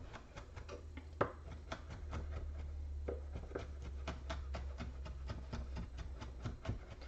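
Large kitchen knife mincing garlic on a wooden cutting board: quick, irregular knocks of the blade on the board, several a second, with one sharper knock about a second in.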